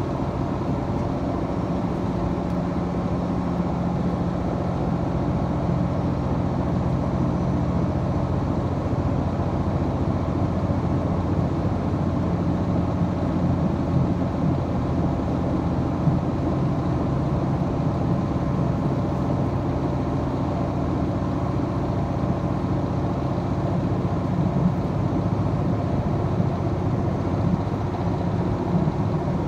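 Diesel express train's underfloor engine running under load as the train travels, heard from inside the passenger cabin along with the running noise of the wheels on the rails. The engine drone is steady, with its note shifting slightly a few times.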